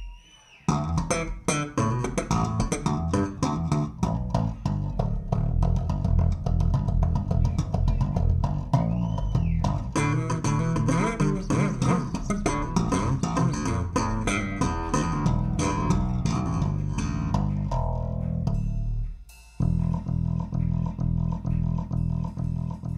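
Recorded live rock music: a bass guitar and drum intro playing a driving, rhythmic groove, which starts just after a brief gap and drops out for a moment about four-fifths of the way through before coming back in.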